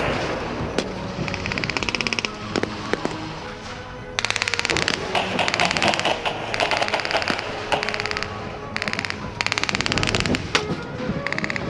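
Blank-firing machine gun going off in several short bursts of rapid fire, with single rifle shots in between.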